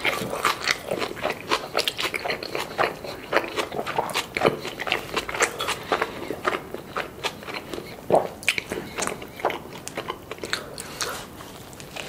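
Close-miked chewing of a mouthful of carne asada burrito with rice and salsa: a dense run of irregular mouth clicks, the loudest about eight seconds in.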